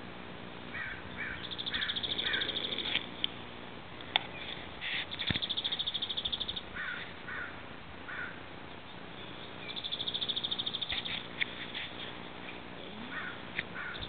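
A horse snoring as it sleeps lying down: a rasping, fluttering snore that comes back about every four seconds, three times.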